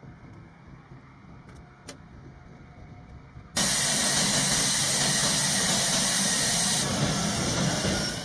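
F-16 jet engine running on the ground, a steady loud rushing hiss that starts suddenly about three and a half seconds in and fades out near the end. Before it there is only a faint background with a few small clicks.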